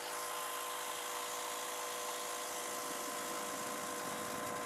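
Greenworks 2300 PSI electric pressure washer running with the trigger held: a steady motor-pump whine with a high tone over the hiss of the 15-degree nozzle jetting water into a lidded bucket.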